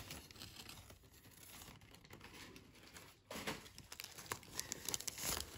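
Brown paper wrapping crinkling and rustling as hands handle it and tear it away from a potted orchid. It is soft at first and grows louder and busier from about three seconds in.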